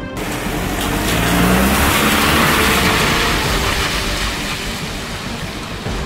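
Volkswagen van driving off on a wet road: its engine rises in pitch as it accelerates about a second in, and its tyres hiss on the wet asphalt. The sound swells, then fades as the van moves away.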